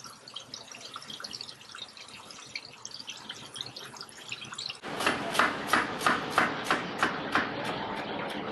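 Faint crackling, then, about five seconds in, a knife chopping carrots and celery on a cutting board: a quick run of sharp strokes, about three to four a second and speeding up.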